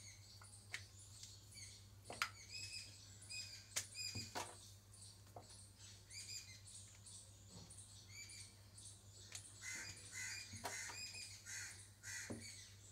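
Wooden rolling pin rolling out dough on a board, with occasional light knocks, and faint high chirps repeating throughout over a steady low hum.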